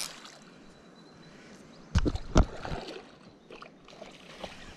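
Hooked Australian bass splashing at the water's surface as it is played in close to the bank, with two loud splashes about two seconds in.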